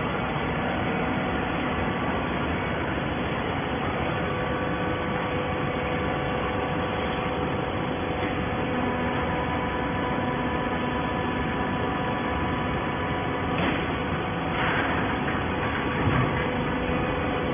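Autofeeder plastic bottle baler running: a steady machine hum with a few held tones, and a few soft knocks in the last few seconds.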